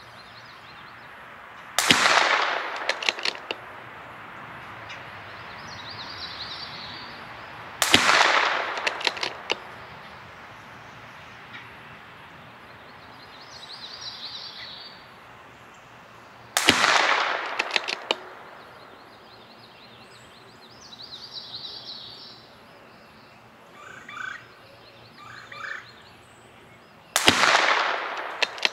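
CZ 457 MTR bolt-action .22 LR rifle firing ELEY Match ammunition: four single shots several seconds apart, each a sharp report with a short trailing echo.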